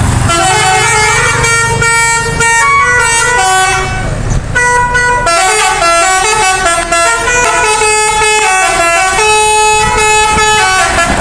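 A bus's basuri musical air horn playing a melody, a run of held notes that step up and down in pitch for the whole stretch, over a low engine rumble near the start.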